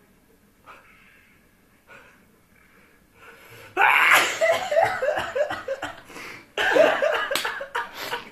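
A person sneezing, or nearly sneezing, after the nose has been tickled to provoke it. There are two loud outbursts: the first, about halfway in, is a run of short breathy catches, and the second comes near the end.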